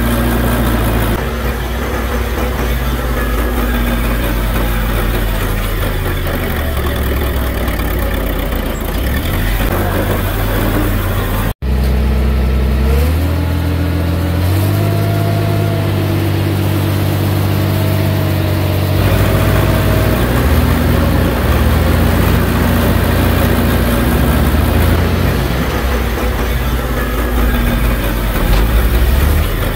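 Diesel engine of a small crawler bulldozer running steadily under work. A split-second dropout comes about a third of the way in. Soon after, the engine note rises and holds higher for about six seconds before settling back.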